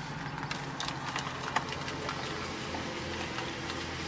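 Car engine running low and steady, heard from inside the cabin, with a few faint clicks and one sharper click about one and a half seconds in.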